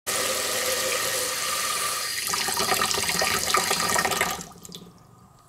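Water running from a single-lever kitchen mixer tap and splashing into the sink. It cuts off about four seconds in as the cat pushes the lever closed, and a few drips follow.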